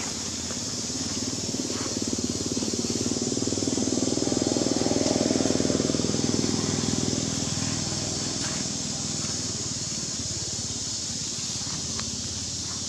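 A motor vehicle's engine passing by, growing louder over a few seconds and then fading, over a steady high hiss.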